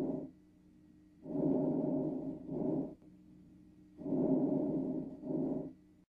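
Diminished vesicular lung sounds: soft breath noise, each breath a longer inspiration followed by a shorter expiration and a pause, with two full breaths after the tail of a previous one. The sound stops abruptly at the end.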